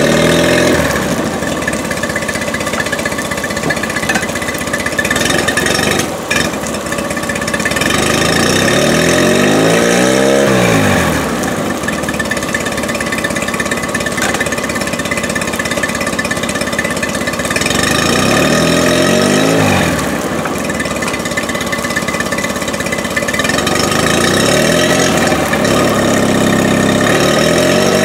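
Mercury 8 HP FourStroke outboard, a two-cylinder four-stroke, running steadily on a test stand with its lower unit out of the water. Its throttle is opened and closed three times, the engine note rising and falling each time.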